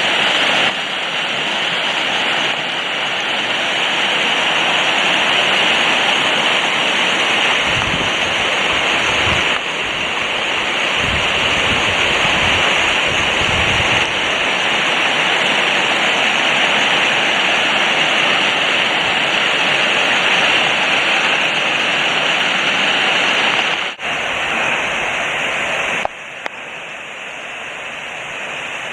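Crabtree Falls' cascading water rushing in a steady hiss. Low rumbles sound on the microphone between about eight and fourteen seconds in, and the rush drops to a lower level for the last few seconds.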